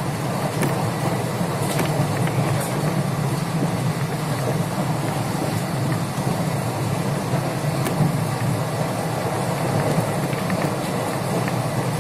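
Steady running noise of a passenger train at speed, heard from inside the coach: a constant rumble of wheels on rails, with a few faint clicks.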